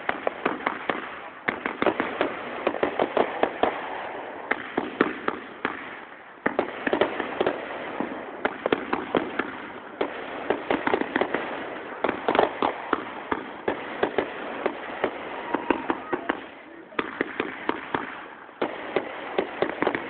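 Fireworks going off in rapid runs of sharp pops, like strings of firecrackers. Several runs of a few seconds each follow one another, with short breaks between them.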